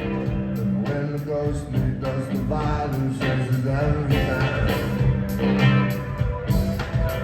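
A live rock band playing, with a deep, steady bass line, guitar and a regular beat on the drums.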